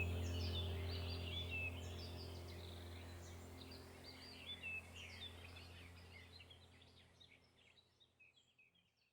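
Many small birds chirping over a steady low hum, both fading out gradually to silence.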